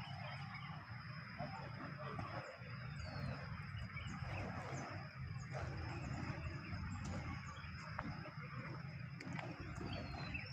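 Outdoor ambience: a steady high-pitched drone with a few short bird chirps over a constant low rumble.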